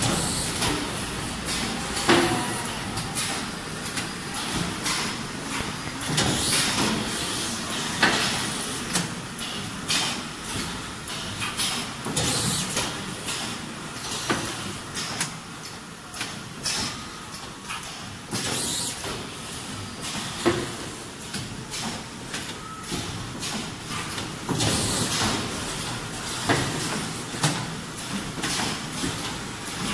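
Automatic radio-frequency PVC welding machine cycling: repeated short, sharp hisses and clunks every second or few seconds over steady machine noise.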